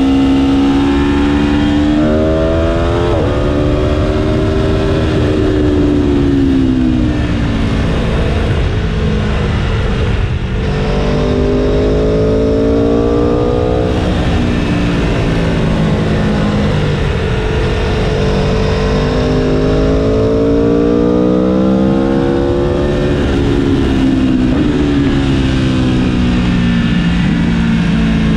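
Aprilia Tuono's V4 engine at full-throttle track riding. Its pitch climbs under acceleration and drops off under braking several times over, with a quick step at a gear change about three seconds in. Heavy wind rush on the onboard microphone sits under it throughout.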